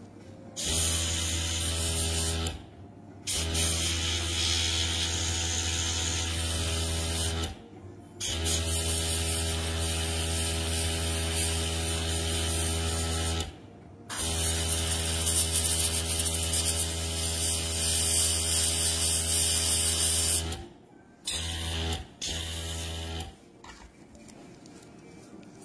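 Airbrush compressor motor humming with the hiss of air and paint spraying from the airbrush. It runs in bursts, starting and stopping: four long bursts of several seconds, then two short ones, then it stops.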